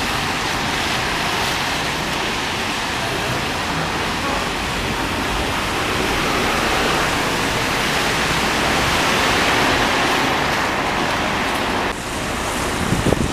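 Buses driving on a wet road: a steady hiss of tyres on the wet surface mixed with engine noise. It builds as a double-deck bus draws near and passes, then drops suddenly near the end.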